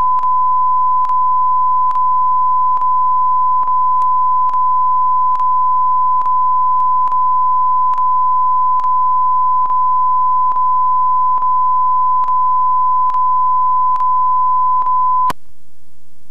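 Steady electronic test tone from the end of a videotape, with a click and brief dip a little more often than once a second. It cuts off sharply near the end, leaving the fainter hiss of blank tape.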